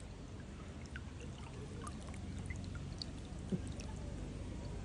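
Water trickling and dripping close by, with many small scattered drips and a low rumble underneath. A single sharp tap stands out about three and a half seconds in.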